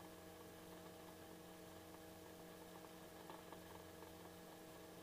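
Near silence: only a faint, steady hum of several held tones.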